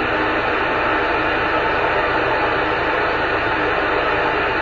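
Steady static hiss from a CB radio receiver on an open channel, with no readable signal coming through.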